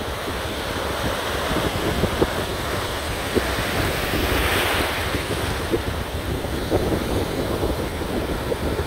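Ocean surf breaking and washing up the beach, with wind buffeting the microphone; one wave breaks louder about halfway through.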